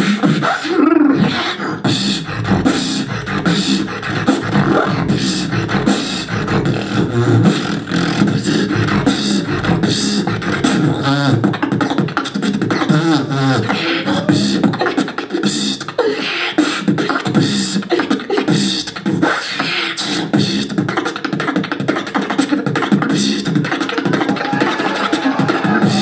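Solo beatboxing into a handheld microphone: a dense, fast run of vocal drum sounds (kicks, snares, hi-hat clicks) mixed with pitched vocal bass and sweeping tones in the middle, and a held pitched note near the end.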